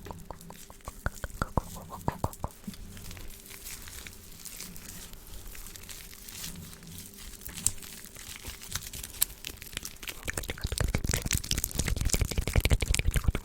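Close-miked ASMR mouth sounds: wet clicks and smacks. They are spaced apart at first and softer through the middle, then come in a fast, dense, louder run from about ten seconds in.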